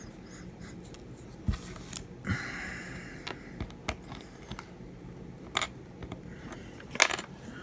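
Small hand tools clicking and scraping against the battery inside an iPhone 7 Plus while it is being pried out: scattered sharp clicks, with a longer scrape a little over two seconds in.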